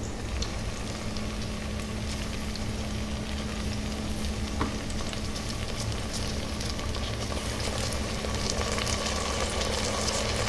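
Sliced onions frying in oil in an aluminium pressure cooker, a steady sizzle, as ginger-garlic paste is dropped in. One light click about halfway; the sizzle grows a little louder near the end.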